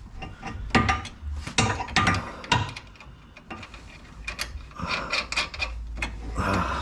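Metal hardware clinking and scraping as a traction bar's bolt, washers, rod end and nut are fitted together by hand, with irregular clicks about every half second to second.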